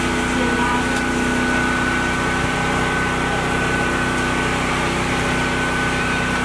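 Engine running steadily, a constant low hum with a steady high whine above it.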